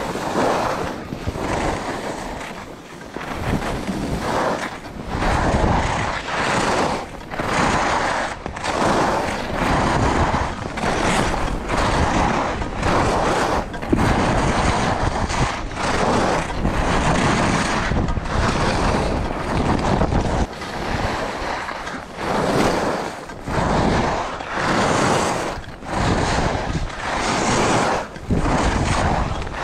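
Skis sliding and scraping over hard-packed snow through a run of turns, the hiss swelling and fading about once every second or so, with wind rushing over the action camera's microphone.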